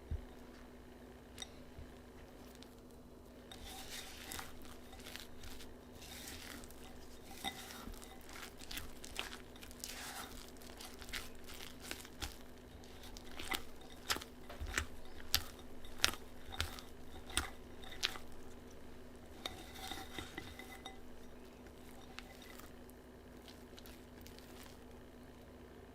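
Kitchen utensils tapping and clinking against a bowl or dish in irregular strokes, busiest a little past the middle and stopping a few seconds before the end, over a steady low hum.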